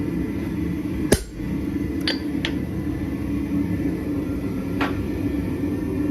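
One hard hammer strike on hot steel at the anvil about a second in, then three lighter metallic clinks, one with a short ringing note. A steady low drone of the running forge lies underneath.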